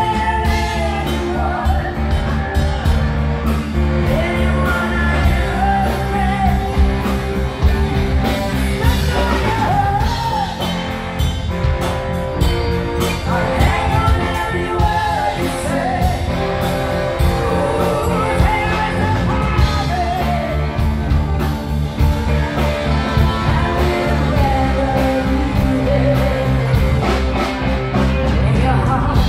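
A live rock band playing: a woman sings lead over electric guitar, electric bass and a drum kit, all amplified through the stage speakers.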